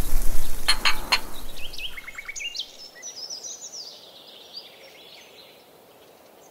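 Wine glasses clinking together in a toast, a few quick high-ringing chinks about a second in. Then birds sing in the background: chirps and short rapid trills, fading out near the end.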